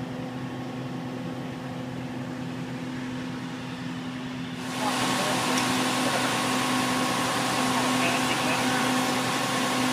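Frac truck's engine and pump running steadily with a hum of a few fixed tones, circulating the descaling solution through the tank. About five seconds in the sound gets louder and a hiss joins it.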